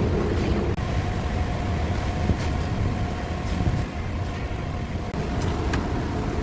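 Large ventilation fan running with a steady low drone and a faint steady whine, with a few light clicks over it.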